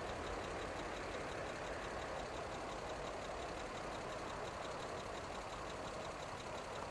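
Distant MBTA F40PH diesel locomotive running with its commuter train, a steady engine rumble that slowly fades a little.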